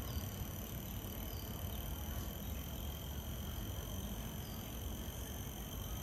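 Outdoor park ambience: a steady high-pitched insect drone over a low, even rumble, with a few faint short chirps of small birds.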